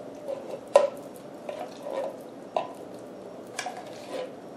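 Wooden spoon scraping thick refried beans out of a tin can, with three sharp knocks of the spoon against the can among softer wet scraping.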